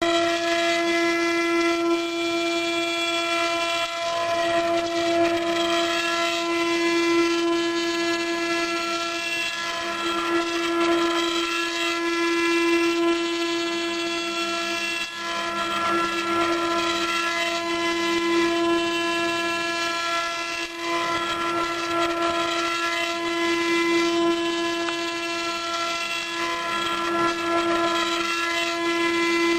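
High-speed CNC router spindle running with a steady whine, cutting foam, over a rushing cutting noise that swells and eases as the tool moves.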